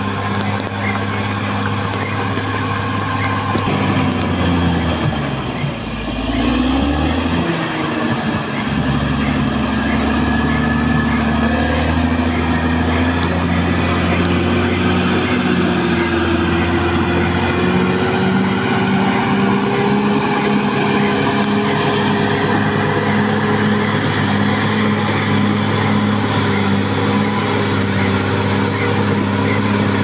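Caterpillar D6R XL crawler bulldozer's diesel engine running under load as the dozer pushes soil with its blade. The engine note dips and rises again about six to eight seconds in, then holds steady.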